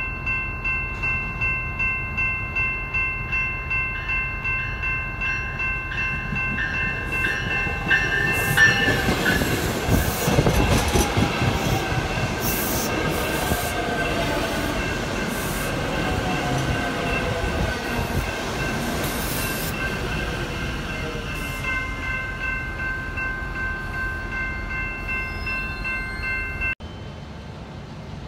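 RTD A Line electric commuter train passing close by, its wheels on the rails loudest about ten seconds in. Before and after it passes, a warning bell rings in quick, even pulses. Near the end the sound cuts abruptly to a much quieter background.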